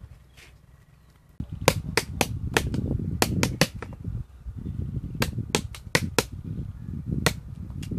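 Hard-shelled wood apples being knocked to crack them open: a quick run of about ten sharp knocks, a pause, about six more, and a single one near the end, over a low rumble.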